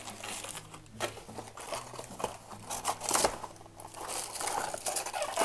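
Cardboard packaging rustling and scraping as a paperboard box insert is handled and lifted out, with scattered small clicks and a sharp knock near the end.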